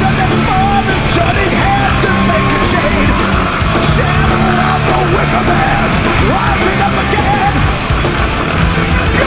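Loud background rock music in a punk or heavy-metal style, with held bass notes and a wavering lead line.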